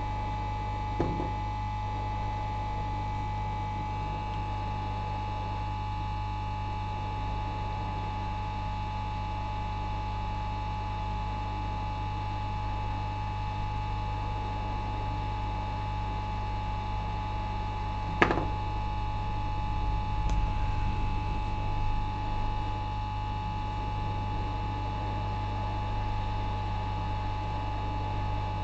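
Steady electrical mains hum with a thin high steady tone over it, broken by two sharp clicks, one about a second in and one about eighteen seconds in, and a little low rumbling a couple of seconds after the second click.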